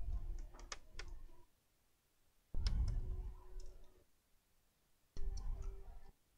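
Hands handling the opened laptop's plastic chassis and parts on a workbench: three short bouts of knocks and clicks, roughly two and a half seconds apart.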